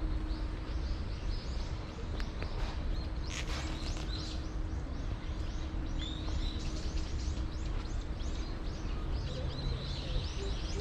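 Small birds chirping in many short, quick calls, repeated throughout, over a steady low city hum.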